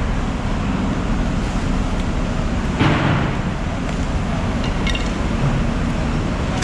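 Steady low background din, with a brief louder rush about three seconds in and a few faint clicks near five seconds.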